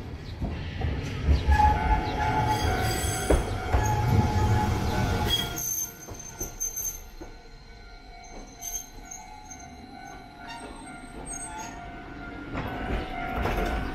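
Alna Sharyo-built Hankai Tramway 1001-type low-floor tram arriving at a stop. Its wheels rumble and squeal with high whining tones as it comes over the curved pointwork. About halfway through, the sound drops to a quieter run with a few steady tones as the tram draws alongside the platform.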